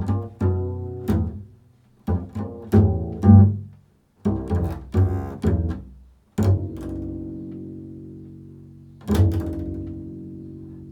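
Improvised music on a low-pitched plucked string instrument: several quick runs of plucked notes, then a chord struck about six seconds in and left to ring and fade, struck again about nine seconds in.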